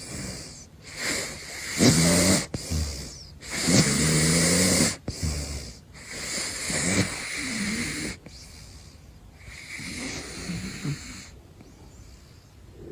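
A caracal snoring in its sleep: a rasping snore with a low rumbling tone on each breath, coming every two to three seconds. The snores grow fainter over the last few seconds.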